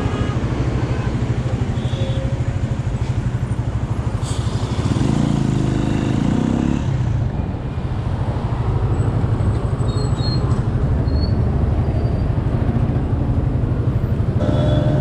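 Motorcycle engine running steadily beneath the rider at low road speed, a fast low throb of firing pulses, with city traffic around. It grows louder for a couple of seconds about five seconds in and eases off briefly just before eight seconds.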